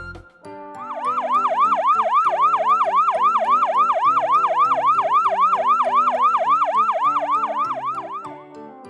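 A fast yelping siren, its pitch swinging up and down about three to four times a second. It starts about a second in and fades out near the end, over background music.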